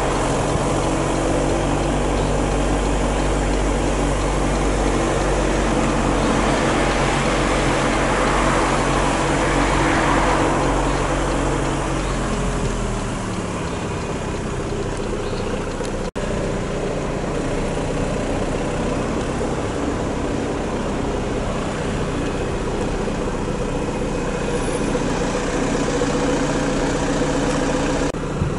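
Motor vehicle engine running with a steady low hum. Around ten seconds in, a rushing sound swells as a vehicle passes and its engine note falls away. After a cut about sixteen seconds in, another steady engine hum carries on.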